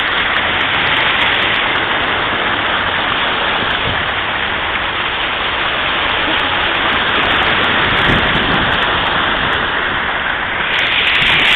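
A steady, loud rush of water around a car as it drives through deep floodwater, heard from inside the car; it grows louder near the end.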